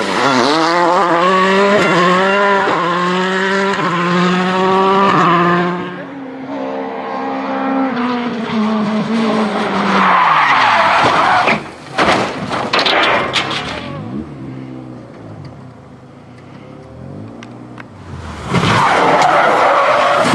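Rally car engines revving hard, their pitch rising and falling, with tyres skidding and sliding in several short bursts; a cluster of sharp knocks comes about twelve seconds in. The first few seconds are a Volkswagen Polo R WRC's turbocharged four-cylinder as the car slides off the road.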